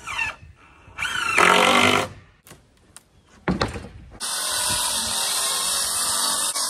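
Cordless drill driving screws into a plywood panel in two short runs, its whine rising and falling in pitch. About four seconds in, a battery circular saw starts and runs steadily, cutting a sheet of 3/4-inch plywood.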